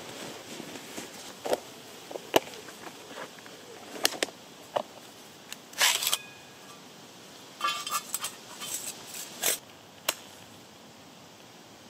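Sharp metal knocks and clinks, spread out over several seconds, as a flat-pack folding metal wood stove is unfolded and fitted together; one strike about halfway through rings briefly, and a quick clatter of plates follows. The knocks stop a couple of seconds before the end.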